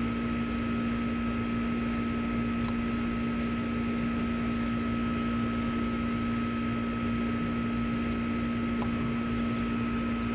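Steady mechanical hum of a fan or appliance, with a few faint, sharp clicks of small metal parts: a screwdriver against a Bic lighter's spark wheel and flint spring. One click comes about three seconds in, and a small cluster near the end.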